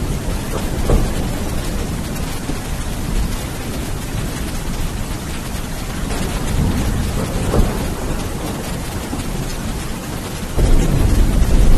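Steady heavy rain with rolling thunder rumbling low in the background, swelling twice, then a louder deep thunder rumble starting near the end.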